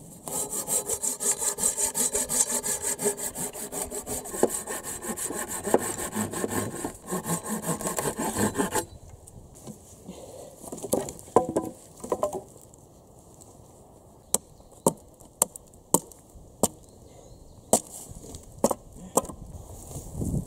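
Hand saw cutting through a weathered wooden plank in quick, even back-and-forth strokes. About nine seconds in the sawing stops, and several sharp taps follow.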